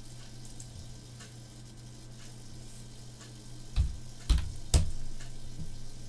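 Steady low electrical hum with a few faint ticks, then three sharp clicks with a low knock, close together about four seconds in: a computer mouse being clicked while drawing a sketch line.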